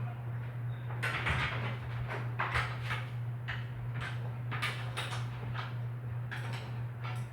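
Metal bicycle parts and tools scraping and rattling in a string of short, irregular noises as the bike is being taken apart, over a steady low hum.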